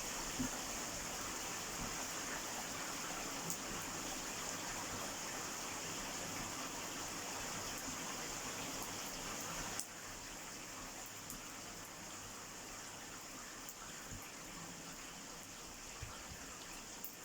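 Steady rain falling, with a few scattered drops ticking close by. The rain noise drops suddenly to a quieter level about ten seconds in.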